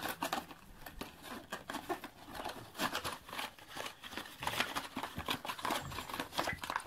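Cardboard box and inner packaging being opened and emptied by hand: irregular rustling, scraping and light clicks as the contents are slid out.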